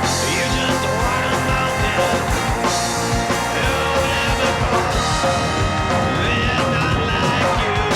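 Rock music with guitar and drums and a steady beat.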